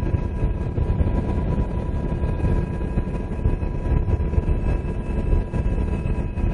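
UH-60 Black Hawk helicopter's rotor and turbine noise heard from inside the cabin: a steady, dense rumble with thin steady whines above it.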